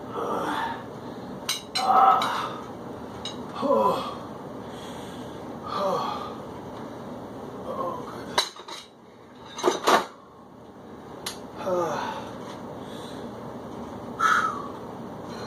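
A man's exhales or grunts during a weight-training set, about one every two seconds, each falling in pitch. A few sharp metal clanks of weights come mostly around the middle, over a steady background hum.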